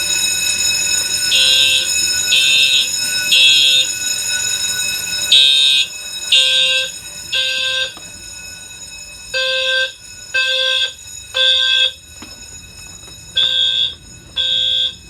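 Fire alarm notification horns sounding in the temporal-three (code 3) evacuation pattern: three half-second blasts about a second apart, then a pause of about a second and a half, repeating. Each blast carries a high tone with a lower tone under it, and a steady sound beneath the blasts drops away about five seconds in.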